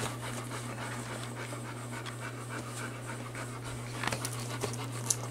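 Adult golden retriever panting steadily with its mouth open, over a steady low hum.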